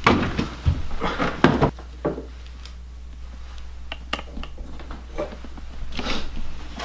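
Knocks and thuds of someone moving about a small room and handling objects, mostly in the first two seconds, then a few lighter clicks and a brief rustle near the end.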